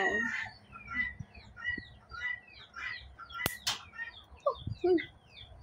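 Small birds chirping rapidly, short falling chirps many times a second, with one sharp click about three and a half seconds in as steel toenail clippers snap through a lionhead rabbit's overgrown incisor. A chicken clucks briefly near the end.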